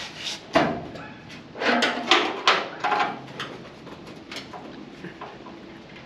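Sheet-metal outer wheelhouse panel being forced into place by hand: a sharp knock about half a second in, then a quick run of scraping, knocking metal around two seconds in, with a few lighter clicks after.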